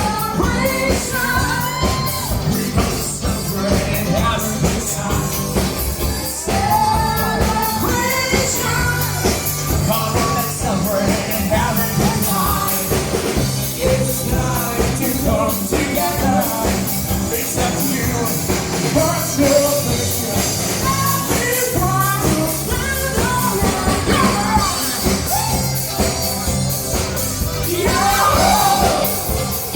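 Upbeat rock-and-roll-style song with a singer over a steady bass line and drum beat.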